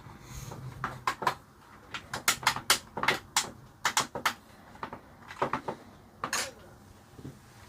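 Irregular clicks and clacks of small hard parts being handled, in two quick clusters with gaps between.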